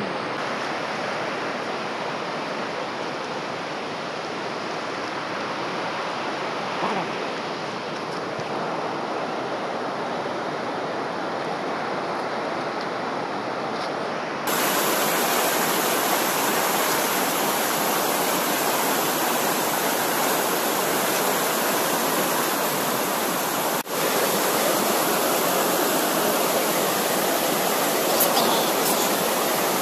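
Fast river water rushing over stones, a steady noise that gets louder and brighter about halfway through.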